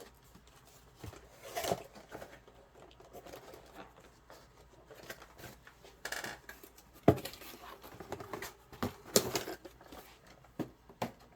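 Handling noises of packaging and small items being put away by hand: scattered light clicks, taps and rustles, with a few sharper knocks, the loudest about seven seconds in.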